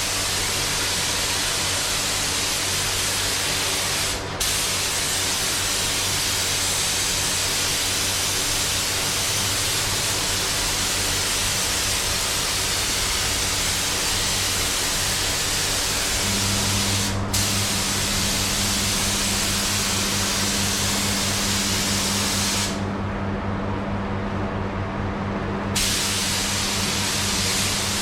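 Compressed-air paint spray gun hissing steadily as paint is laid onto the car's panels. The trigger is let off briefly twice and for about three seconds near the end, with a steady low hum underneath.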